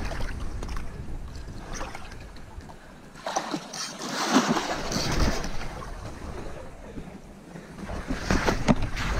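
Water splashing as a large fish thrashes in the shallows, with wind rumbling on the microphone. The splashing is loudest from about three to five and a half seconds in and comes again near the end.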